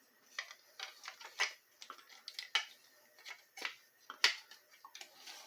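Irregular small clicks and taps of plastic parts of a Black & Decker auto clamp being handled and fitted together during reassembly, with the sharpest click about four seconds in.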